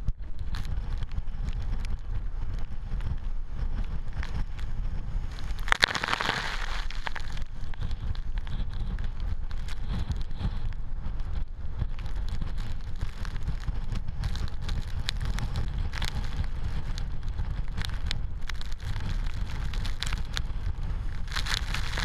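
Typhoon wind buffeting the microphone in a steady low rumble, with rain and sea spray ticking against the camera. A louder rush of hiss comes about six seconds in and again near the end, as spray sweeps over the lens.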